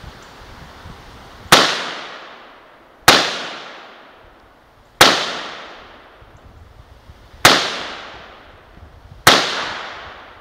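Five shots from a semi-automatic SKS rifle in 7.62×39, fired one every two seconds or so, each sharp crack trailing off in an echo lasting about a second.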